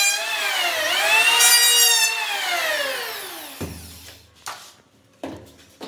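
Electric hand planer running with a high whine, its pitch dipping twice as it cuts, then switched off and winding down with a long falling whine. A few short knocks follow near the end.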